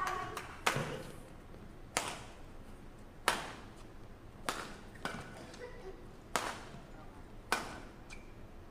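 Badminton rackets striking a shuttlecock in a fast rally, about seven sharp cracks roughly a second apart, each ringing briefly in the hall.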